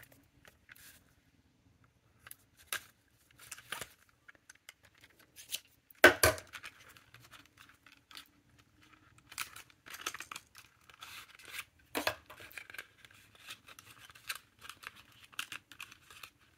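Scissors snipping through packaging, then a small cardboard box being opened and handled with paper and plastic rustling. It comes as scattered clicks and snips, with a sharp snap about six seconds in and another near twelve.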